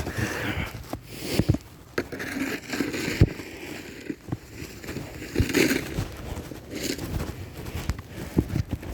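Snow shovel scraping and pushing fresh snow in irregular strokes, with crunching snow and a few sharp knocks of the blade against the pavement.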